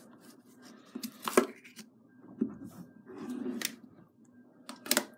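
Plastic slime tub being opened: fingernails tap and scratch the lid, the lid clicks and snaps as it is pried off, and glow-in-the-dark slime pulls away stickily from the lid. The sharpest clicks come about a second and a half in and again near the end.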